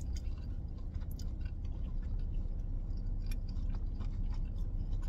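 A person chewing a bite of thin-crust pizza with the mouth closed: soft, irregular chewing clicks over a low steady rumble.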